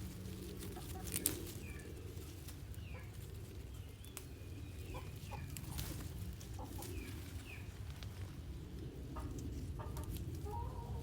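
Chickens clucking and calling in many short scattered notes over a steady low rumble, with a sharp click a little over a second in.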